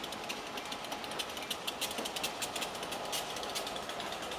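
Freight train's wheels clicking and clattering over the rails at a road crossing: a quick, irregular run of sharp clicks, thickest in the middle of the stretch.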